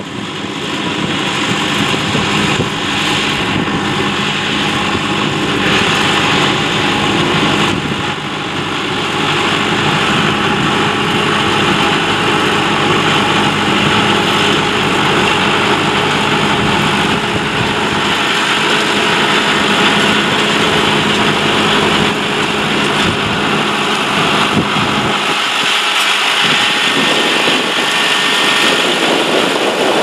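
Massey Ferguson 3070 tractor's diesel engine running steadily under the load of pulling a three-furrow Kverneland plough through sod. It grows louder over the first couple of seconds as the tractor draws near, then holds steady.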